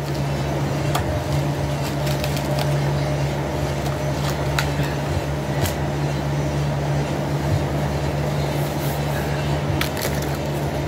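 Paper being handled, crinkling and rustling in scattered sharp crackles, over a steady low motor hum.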